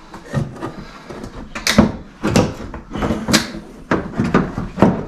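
Irregular knocks and clunks of a loose fibreglass front wing being pushed and shifted against the car body as it is test-fitted.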